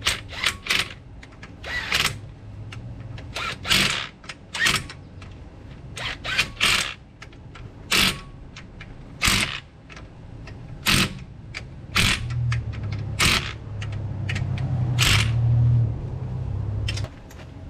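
Sharp metallic clicks and clinks, about one a second, as wrench, socket and nuts are worked on a front wheel hub cover; a cordless power tool runs steadily for about five seconds near the end, snugging the hub-cover nuts down.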